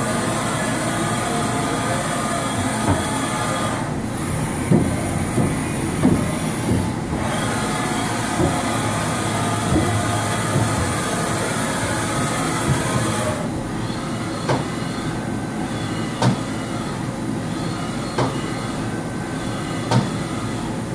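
2005 Haas VF-9/50 CNC vertical mill running, its table traversing under the spindle: a steady mechanical hum with faint whines and short knocks every second or two. A high hiss over it drops away twice.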